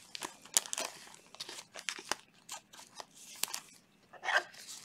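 Trading cards being handled in gloved hands: irregular rustling, sliding and light clicking as cards are moved through the stack, with brief crinkles.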